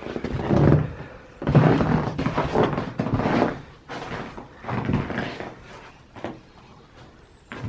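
Footsteps crunching through snow, about one step a second, with dull thumps as each foot lands.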